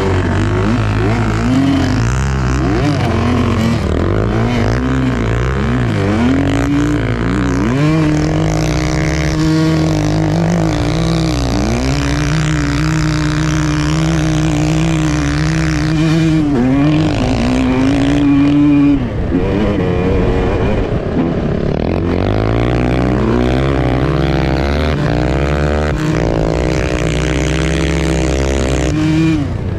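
Two-stroke single of a Suzuki RM250 dirt bike running under load through snow, the revs rising and falling with throttle and gear changes. The pitch holds steady for a few seconds in the middle, falls away with a brief dip about two-thirds through, then climbs again.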